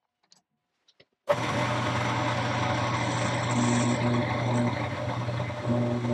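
Jet JMD-18 mill-drill spindle running at about 1600 RPM, a quarter-inch carbide end mill taking a light first flat cut on a 4140 steel shaft. The steady machine hum comes in suddenly just over a second in, after near silence.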